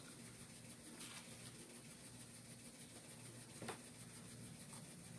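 Near silence: a low steady hiss with two faint mouth clicks, about a second in and again a little before four seconds, as fingers are licked while eating fried chicken and waffles.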